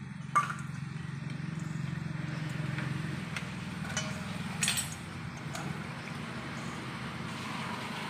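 Fingers rummaging through small fish and shrimp in a stainless steel bowl, with a sharp clink off the bowl about half a second in and smaller clinks near the middle, over a steady low hum.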